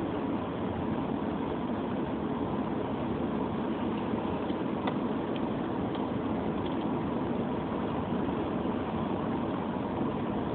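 Steady running noise of a car heard from inside the cabin while driving: engine and tyres on a wet road.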